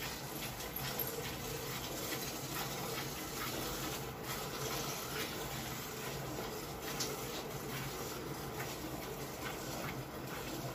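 Milk squirting into a steel bucket, stream after stream, as a buffalo is milked by hand.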